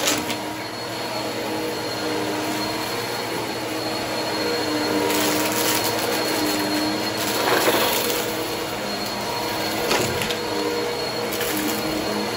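Two upright vacuum cleaners running on carpet, their motors whining steadily, with a few brief bursts of crackling as crumbs and debris are sucked up.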